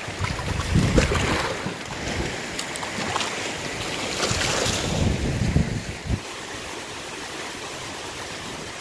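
Strong gusty wind, around 30 miles an hour, buffeting the microphone over choppy lake water; the gusts ease about six seconds in.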